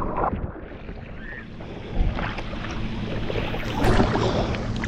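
Lake water sloshing and splashing close around the camera, with irregular splashes, louder about two seconds in and again near four seconds, over a low steady hum.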